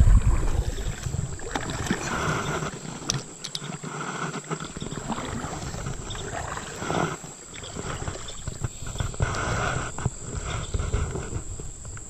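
Handling noise as a smallmouth bass is brought into a plastic kayak and held by the lip: irregular splashes, knocks and rubbing on the hull, under a steady high-pitched drone.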